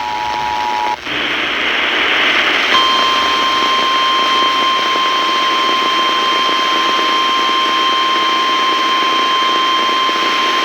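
Emergency alert audio: a two-tone attention signal cuts off about a second in, then a loud hiss-like noise. From nearly three seconds in, a steady single-pitch weather radio alert tone sounds over the hiss, the NOAA Weather Radio warning alarm that comes before a National Weather Service severe thunderstorm warning.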